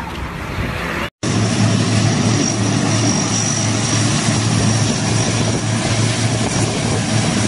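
Steady engine noise with a low hum and a thin high whine over it. It starts abruptly after a short dropout about a second in.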